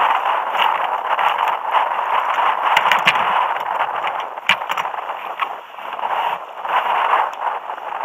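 Wind and choppy water splashing against a fishing kayak, a steady rush with scattered knocks and clicks from gear being handled on deck.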